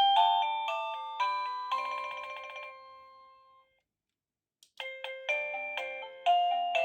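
Electronic doorbell chime of an Avantek wireless doorbell playing a melody of quick ringing notes, which ends in a fast trill and fades away. After about a second of silence there is a click, and another tune begins.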